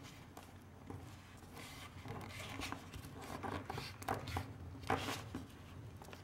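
A sheet of printed paper being folded and creased by hand against a table: faint rustling and sliding, with a few short crinkles as the fold is pressed flat.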